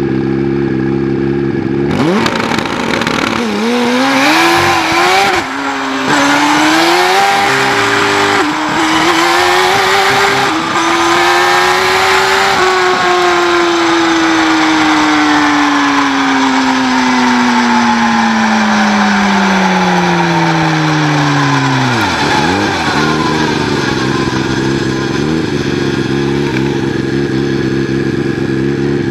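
Turbocharged Suzuki Hayabusa 1300 drag bike's inline-four engine idling, then launching about two seconds in and revving up in steps through several gear changes. From about halfway the engine note falls steadily for some ten seconds as the bike slows, dips sharply, and settles back to a steady idle near the end.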